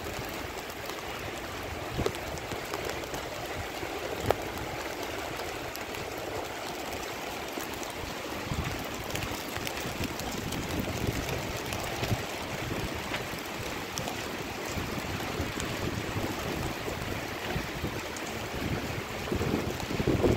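Heavy rain falling on a flooded street, with a steady hiss of water splashing and running over the pavement. A few gusts of wind buffet the microphone near the end.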